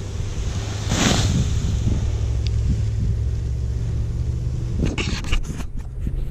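Wind buffeting the microphone with a steady low rumble as a paraglider comes in to land, swelling in a loud gust about a second in. Near the end, a run of short rustling and scuffing noises as the pilot touches down on the sand and the wing comes down.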